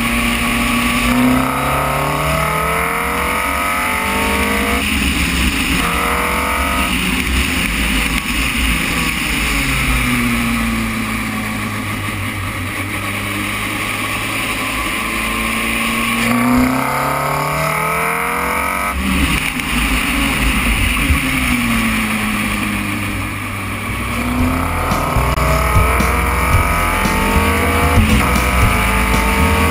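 Formula Renault 2.0 single-seater's 2.0-litre four-cylinder engine heard from the cockpit at speed, its pitch climbing in steps as it shifts up through the gears on the straights and falling as it slows into corners, several times over.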